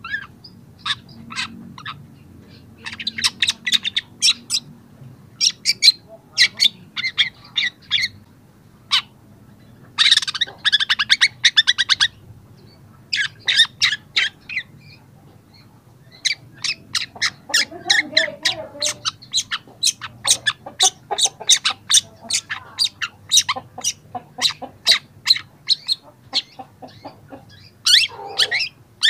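Young long-tailed shrike singing: bursts of short, sharp, high chattering notes, with a dense rapid trill about ten seconds in and an almost unbroken run of notes through the second half.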